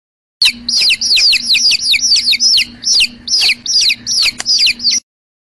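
Baby chick peeping: a rapid run of high, falling peeps, about four a second, that cuts off abruptly near the end.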